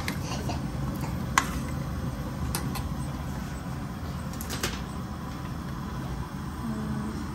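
Kitchen handling noises: a few sharp clicks and light knocks over a steady low hum, the loudest knock about a second and a half in.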